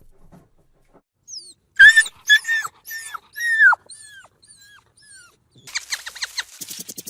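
An animal giving a series of about eight short, high calls, each falling in pitch, loudest at first and growing fainter. Near the end it gives a quick run of rapid squeaky chatter.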